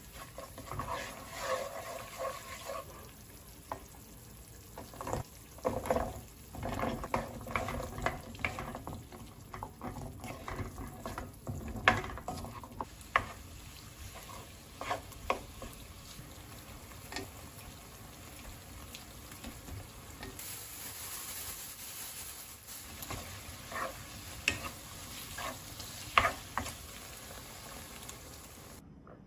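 Food frying and sizzling in a pan while it is stirred, with a utensil knocking and scraping against the pan at irregular intervals.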